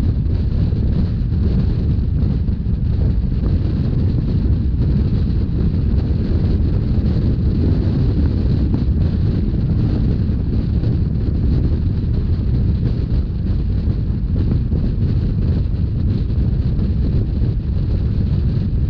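Steady low rumble of a Rhaetian Railway narrow-gauge train running along the line, with wind buffeting the microphone.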